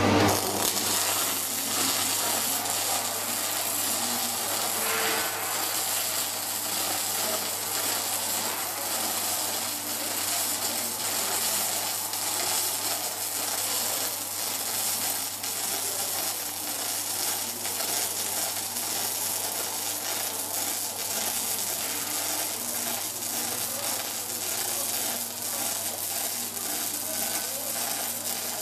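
Welding robot's arc crackling and sizzling steadily with fine rapid crackles, over a steady low hum.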